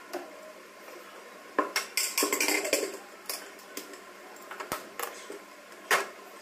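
Metal cookware and utensils clattering and clinking as pots, lids and a pan are handled, with a dense run of clatter about two seconds in and one sharp clank near the end.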